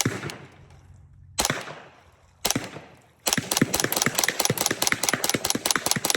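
Integrally suppressed Ruger 10/22 .22 rifle firing: three single shots about a second apart, then a rapid string of shots at about six a second.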